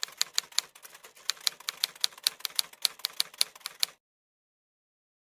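Typewriter keystroke sound effect clicking rapidly, about six keys a second, then cutting off to silence about four seconds in.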